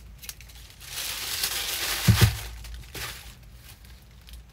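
White packing paper rustling and crinkling as it is handled and folded, starting about a second in, with two thumps about two seconds in.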